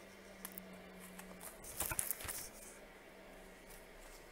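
Bagged comic books being handled on a wooden easel: soft crinkling and rustling of the plastic sleeves, loudest about two seconds in, over a faint low hum.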